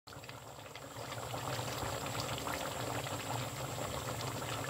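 Chicken curry gravy bubbling at a simmer in a pan on a gas burner: a steady hiss full of many small pops.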